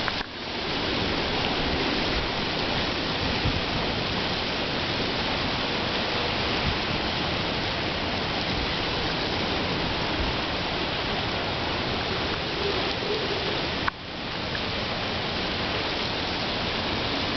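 Storm surf and wind during Hurricane Bill: a steady, dense rush of crashing water and wind. It drops out briefly about fourteen seconds in and comes back.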